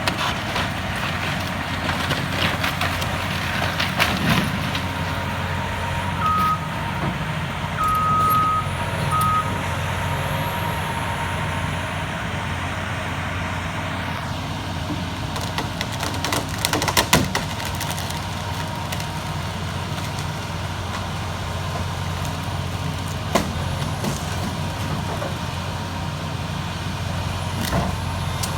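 Heavy demolition machinery's diesel engine running steadily, with scattered knocks and crashes of breaking and falling building debris, a cluster of them around the middle. Three short high beeps sound about six to nine seconds in.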